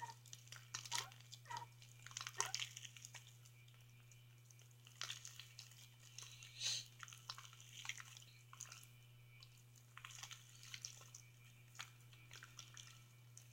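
Fluffy slime made with shaving cream being kneaded and stretched by hand: faint, irregular squishing and crackling, over a steady low hum.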